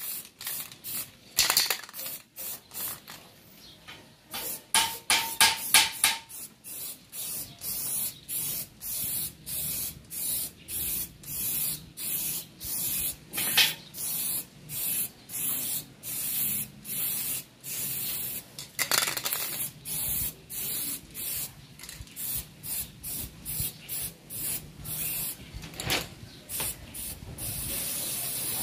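Aerosol can of high-temperature spray paint being sprayed in short, evenly repeated bursts, about three every two seconds.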